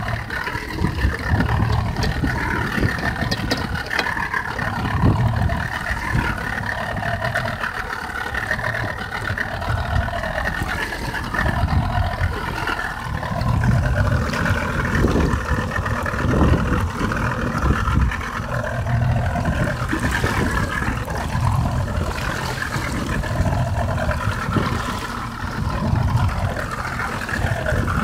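Outboard motor of a small open fishing boat running steadily, over an uneven low rumble that swells and fades.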